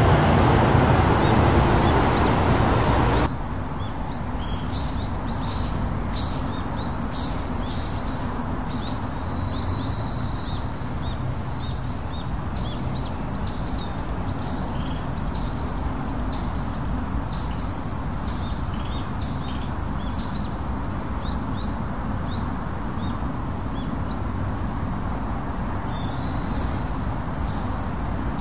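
Road traffic noise for about three seconds, then a steady outdoor background hiss with birds calling: runs of short, high whistled calls repeated many times over.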